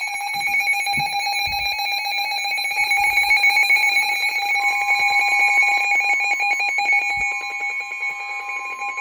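Emergency Alert System attention tone sounding through a speaker: a loud, shrill electronic alarm tone with a rapid pulsing quality, joined about halfway by a second, slightly higher tone. It is the signal that an emergency warning, here a severe thunderstorm warning, is about to be read.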